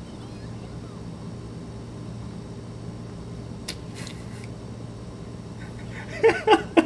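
Steady low electrical hum of room noise, such as a fan or air conditioner. Near the end a man laughs in a few short bursts.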